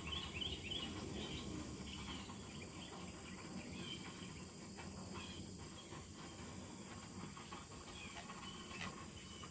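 Quiet rural outdoor ambience: a steady insect drone, with a quick run of short bird chirps in the first second and a few scattered chirps after.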